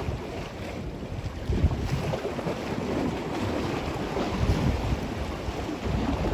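Wind buffeting the microphone over the wash of choppy lake waves, in uneven gusts that grow louder about a second and a half in.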